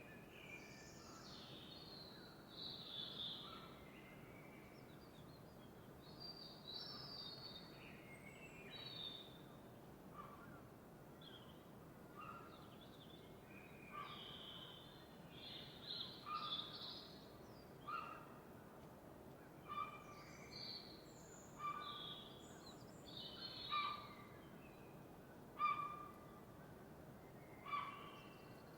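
Several birds singing and calling in a dawn chorus over a faint steady hiss. About a third of the way in, a short lower call begins repeating about every two seconds, growing louder toward the end.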